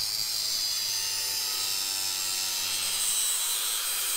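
Cordless angle grinder with a thin cut-off wheel running steadily under load as it cuts about half an inch off a metal rod, giving a continuous high whine.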